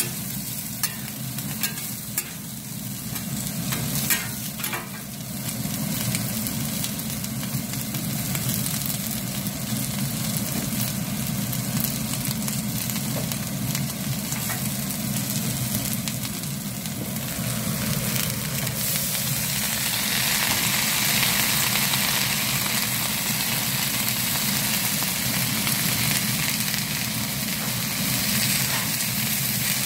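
Food sizzling on a large iron griddle while metal spatulas scrape and toss it, with sharp taps of the spatulas on the plate in the first few seconds. Past the middle the sizzle grows louder and hissier as steam rises, over a steady low hum.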